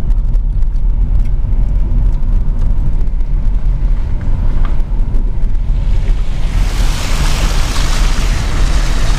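A car driving into a shallow ford, heard from inside the cabin as a steady low rumble. About six and a half seconds in, the tyres enter the water and a loud rushing splash of spray sets in and keeps going.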